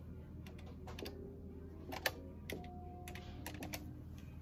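Irregular light clicks of keys being pressed at a desk, over a faint steady low hum.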